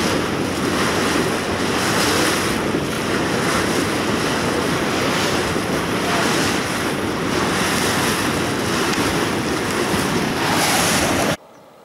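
Wind buffeting the microphone hard in slow gusts, over the wash of waves on the river. The sound cuts off abruptly near the end.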